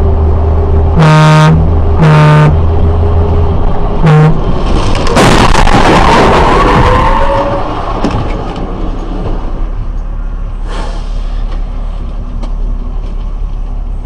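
A car horn blares twice, then gives a short third toot, over a steady engine drone. About five seconds in comes a loud, noisy crash of a road collision lasting a couple of seconds, with a squeal near its end, followed by steady road and engine noise.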